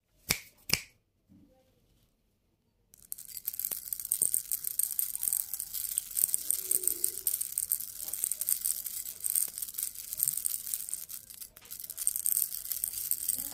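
Two sharp clicks, then from about three seconds in a continuous fine rattling and clicking of small sugar-coated chocolate candies jostling against each other and a glass bowl as a wrapped lollipop is stirred through them.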